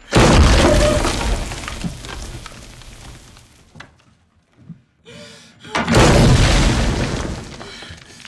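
Two loud crashes, one right at the start and another about six seconds in. Each hits suddenly with a deep low end and dies away over two to three seconds.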